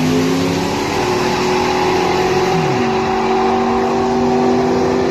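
A twin-turbo Corvette drag car running at full throttle down the strip, pulling away. Its engine note drops once, about two and a half seconds in, as the two-speed Powerglide shifts into second gear.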